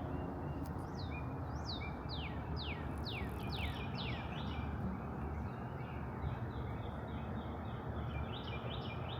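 Wild birds singing: a run of about a dozen quick, downward-slurred whistles in the first few seconds, then a series of short chirps near the end, over a steady low background noise.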